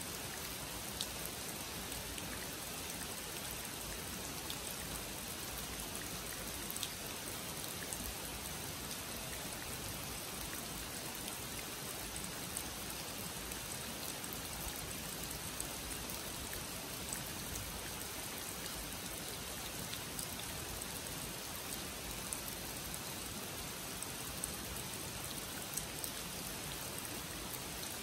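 Steady rain falling on a pond and leafy trees, with occasional sharper drips standing out.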